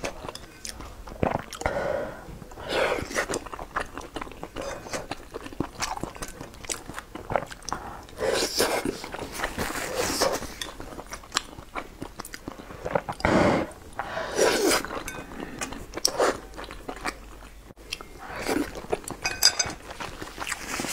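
Close-miked chewing and wet mouth sounds of a person eating boiled dumplings in spicy chili-oil broth: many small clicks, with a few louder stretches of eating noise around the middle.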